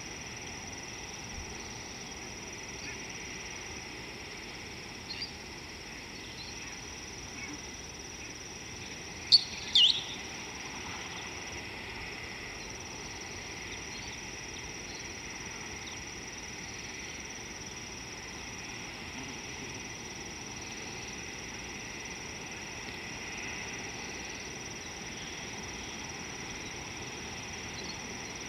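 Steady high-pitched insect chorus with a few short, sharp bird calls. The loudest are two calls close together about a third of the way in.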